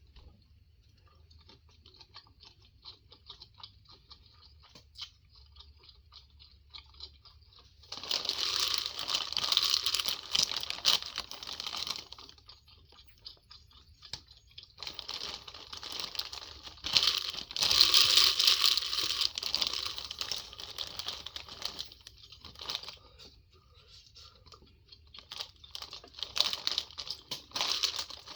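Close-miked mukbang eating of a seafood boil: three long bouts of tearing, crinkling and crunching as the food is pulled apart and eaten, the first starting about eight seconds in, after faint scattered clicks.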